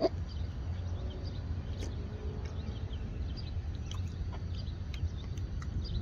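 Outdoor background with small birds chirping on and off over a steady low rumble.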